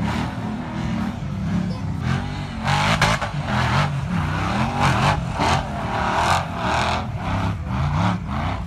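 Off-road race buggy engine revving hard in repeated surges, its pitch climbing and falling about once or twice a second as the buggy claws up a steep dirt hill.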